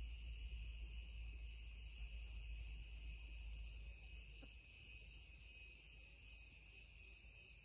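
Steady high-pitched insect chorus of several overlapping shrill tones, one of them pulsing, over a faint low rumble.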